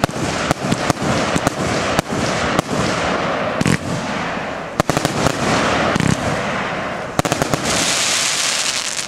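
Heron compound firework battery firing: a fast run of launch shots and bursts over a continuous crackle, with tight clusters of bangs about five and seven seconds in and a dense high crackling rush near the end.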